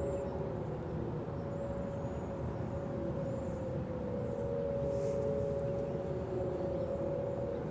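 Whelen WPS 4004 electronic outdoor warning siren sounding during its test cycle: a steady high tone with slow, repeated falling pitch sweeps beneath it, over a low rumble.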